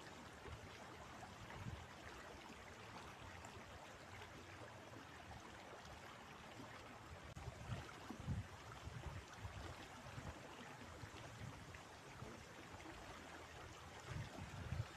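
River water flowing steadily. Gusts of wind buffet the microphone with a low rumble about eight seconds in and again near the end.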